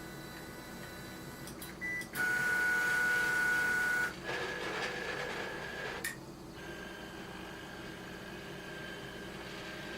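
DIY Ultimaker-type 3D printer homing: its stepper motors drive the axes with a steady pitched whine. The whine is loudest from about two to four seconds in, shifts slightly higher and rougher until about six seconds, then drops to a fainter steady whine.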